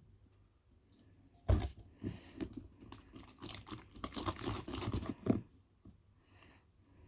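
Freshly activated slime being stretched and kneaded by hand, a dense run of sticky, crackly tearing noise that starts suddenly about a second and a half in and stops about four seconds later.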